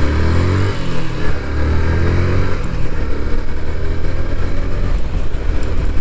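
Motorcycle engine accelerating under the rider: the pitch rises, drops back about a second in at a gear change, rises again, then runs steadier at speed.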